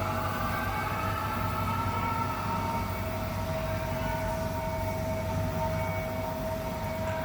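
Ride-on dry floor sweeper running steadily: a constant low hum with several steady whining tones over it.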